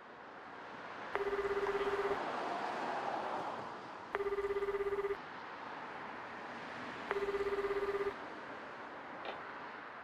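Japanese telephone ringback tone heard down the line: three rings about three seconds apart, each a warbling tone about a second long, over a steady hiss. The call is ringing out, waiting to be answered.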